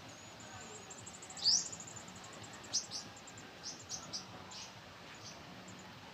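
High, thin chirping of small birds as the parent feeds her nestlings. A rising chirp and a fast high trill come early, then short single chirps follow every half second or so, typical of chicks begging for food.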